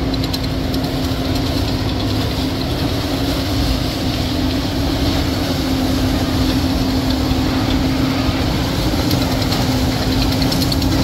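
John Deere CH570 sugarcane harvester working as it cuts cane and loads a tractor-drawn wagon: a steady, loud diesel-machinery drone with a constant hum, mixed with the tractor's engine running alongside.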